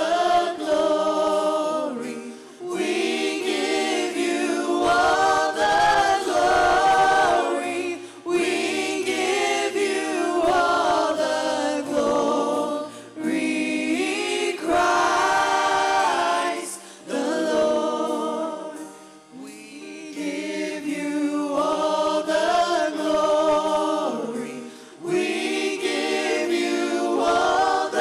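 A worship team of several singers on microphones singing a slow song together, in sung phrases of a few seconds with short breaks between.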